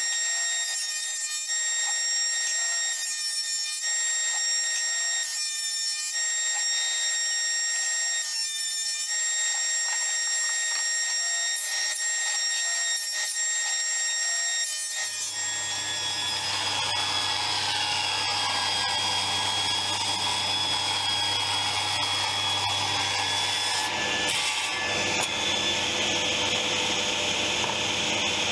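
Jointer running with a steady high whine while a board is fed over the cutterhead in several passes, each pass a short burst of cutting noise. About halfway through the sound changes to a denser, steadier machine noise with a low hum.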